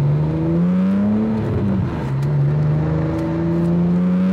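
BMW M3 engine under hard acceleration, heard from inside the cabin: the engine note climbs, dips briefly about one and a half seconds in, then rises steadily again as the car pulls harder.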